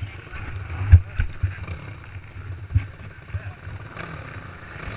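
Low rumble and knocks on a dirt bike's front-mounted camera as the bike moves slowly over bumpy ground, with a sharp thump about a second in and another near three seconds.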